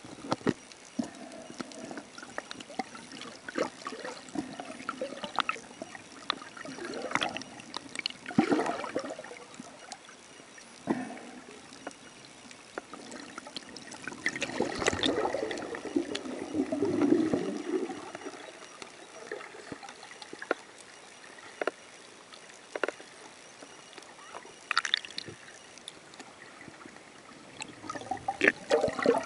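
Water sloshing and gurgling around a camera held in the sea, with irregular bubbling pops and splashes, swelling louder for a few seconds midway.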